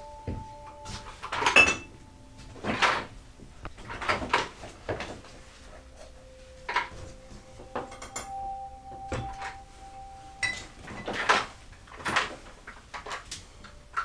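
Wooden chess pieces being taken from a wooden box and set down on a chessboard: a string of irregular, sharp wooden clicks and knocks.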